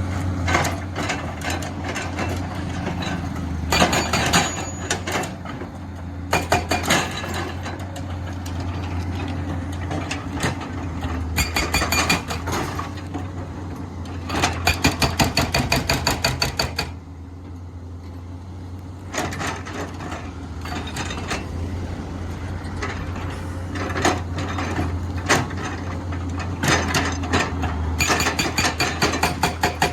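Komatsu PC210 excavator's diesel engine running steadily while its hydraulic breaker hammers in repeated bursts of rapid blows, about eight a second, with short pauses between bursts.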